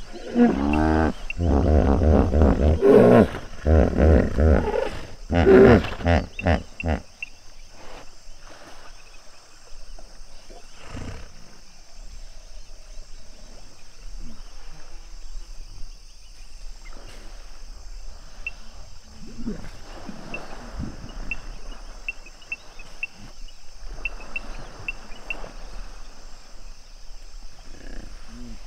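Hippos calling: a rapid run of loud, deep grunting calls for the first seven seconds or so, then quieter, with faint high chirping and one more low grunt near the end.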